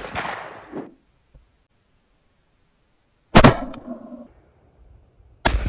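12-gauge over/under shotgun fired three times: one shot at the start, the loudest about three and a half seconds in, and another near the end. Each report dies away over about a second.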